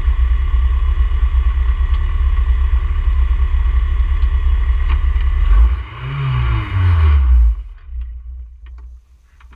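Ginetta G20 race car heard from inside the cockpit, its engine and road noise running as a steady loud drone. About six seconds in, the revs swing down and back up in quick sweeps, and then the engine sound cuts off abruptly, leaving only faint knocks and rustles.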